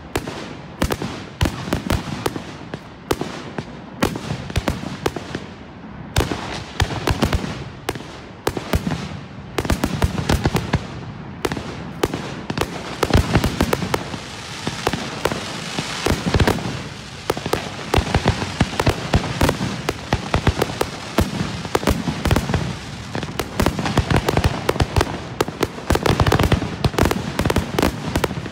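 A rapid barrage of aerial firework shells bursting, the bangs coming several a second without let-up. From about ten seconds in, a dense hiss fills in beneath the reports.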